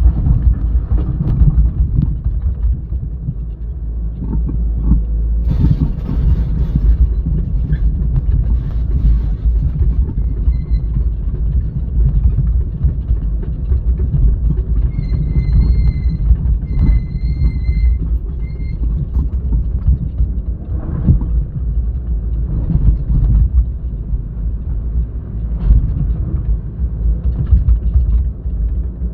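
Heavy diesel machinery rumbling: an excavator working beside a dump truck, with scattered knocks and clatter. About ten seconds in a high-pitched beeping alarm sounds in short repeated beeps for several seconds.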